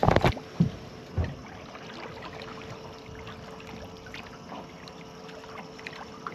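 Water lapping against a fishing boat's hull as it drifts, with a few low thumps in the first second or so and faint scattered ticks, over a faint steady tone.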